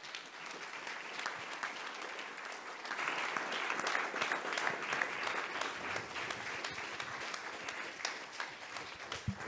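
Audience applauding, swelling to its fullest about three seconds in and gradually thinning out toward the end.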